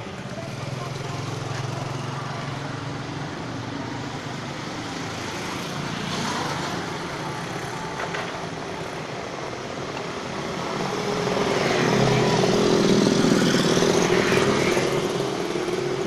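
Road traffic going by, with steady engine noise. About eleven seconds in, one vehicle passes close and grows louder for several seconds before fading.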